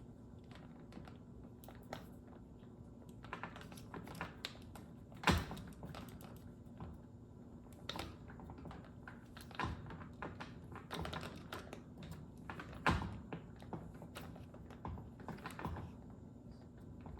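Faint, irregular clicks and taps of small parts being handled: a button-head machine screw being fitted and tightened through a plastic dishwasher rack wheel onto its bracket. A sharper knock comes about five seconds in and another near thirteen seconds.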